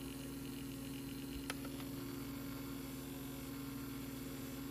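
Small motor of a Philips AQ6492 cassette player running with play pressed: a steady hum, with a faint click about a second and a half in. The motor turns but the tape doesn't play because the pinch roller isn't turning, which the owner puts down to a loose or slipping belt.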